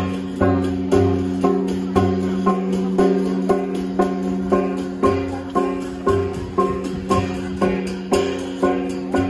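Music: a plucked string instrument picking a repeating pattern of notes, about two a second, over a steady low drone.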